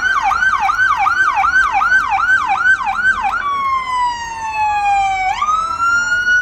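Police SUV's electronic siren sounding a fast yelp, about three falling sweeps a second. About halfway through it switches to a slow wail that glides down in pitch, then quickly rises and holds high.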